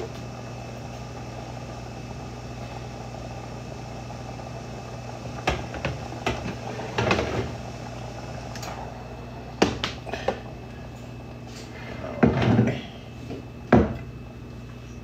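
Kitchen clatter: pots, pans and utensils being handled and set down, with a few sharp knocks and a cupboard door, over a steady low hum.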